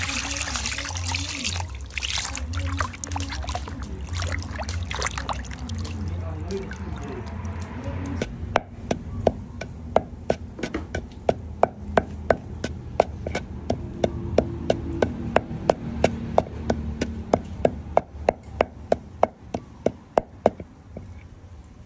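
Water pouring and splashing over raw beef slices as they are rinsed by hand in a plastic bowl. Then a wooden pestle pounds in a wooden mortar in a steady run of sharp knocks, about three a second, grinding a pale powder.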